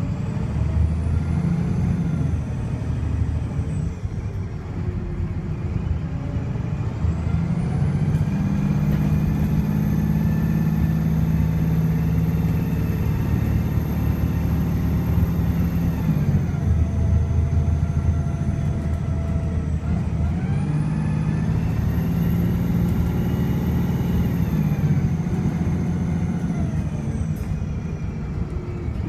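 VDL SB200 bus diesel engine pulled hard under kick-down, the uploader saying it is misfiring. The engine note climbs and is held high for several seconds before dropping away, twice, with a high turbo whistle rising and falling with it.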